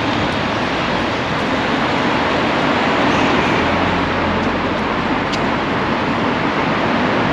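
Steady rushing vehicle noise, with a low hum swelling briefly in the middle and a single sharp click about five seconds in.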